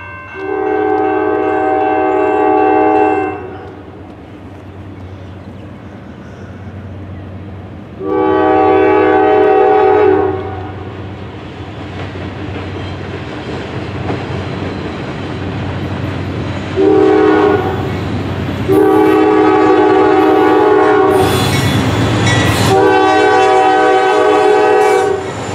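Norfolk Southern diesel locomotive's multi-chime air horn sounding a grade-crossing signal: two long blasts, a short one, then two more long ones. Under it the train's rumble grows louder as the locomotives approach, and is loudest as they pass near the end.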